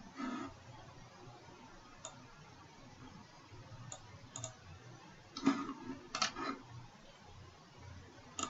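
Computer mouse clicks, faint and scattered, about eight in all, the loudest two a little past the middle.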